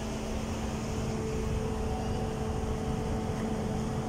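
Steady machine hum with a low rumble and a constant two-note drone, unchanging throughout.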